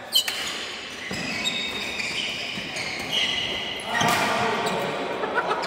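Badminton doubles rally in a large, echoing hall: a sharp crack of a racket striking the shuttlecock just after the start, then voices, and another burst of hitting and movement about four seconds in.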